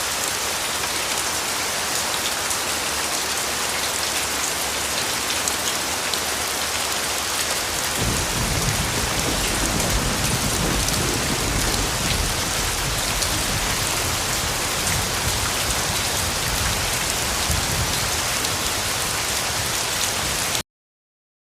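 Steady heavy rain falling. About eight seconds in, a low rumble of thunder joins and keeps rolling under the rain. The whole sound cuts off abruptly near the end.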